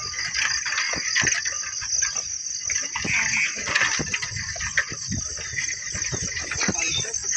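Crickets trilling in a steady high chorus, with irregular low scuffs of footsteps on a brick path.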